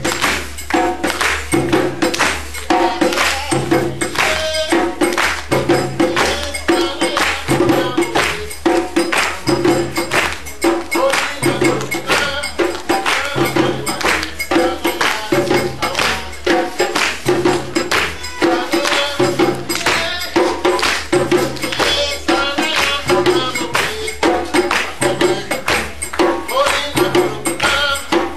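Live percussion music: many quick hand-struck and jingling strokes over a low beat that repeats about once a second, at a steady driving pace.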